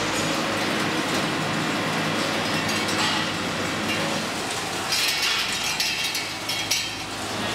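Wire plating racks loaded with chrome-plated motorcycle handlebars clinking and rattling against metal as they are handled and hung on a rod, the clinks bunched a little after halfway. Under them runs a steady workshop hum.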